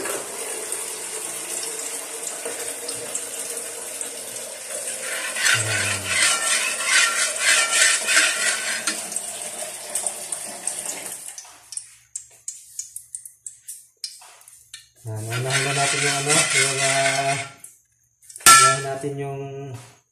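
Kitchen tap water running steadily, shut off about eleven seconds in, followed by light clinks of dishes and utensils. A low pitched drone sounds twice near the end, the second time after a sharp click.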